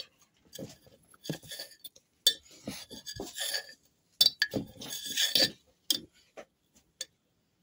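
Irregular clinks, taps and scrapes of a spoon against a container and a plastic funnel as instant coffee is scooped and tipped into a plastic water bottle.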